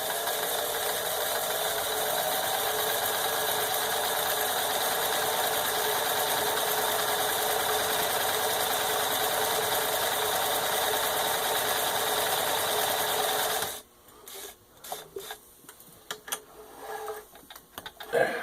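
Necchi 535FA zigzag sewing machine running steadily at an even speed while it stitches a built-in block-square pattern. It stops abruptly about 14 seconds in, followed by a few light clicks and knocks.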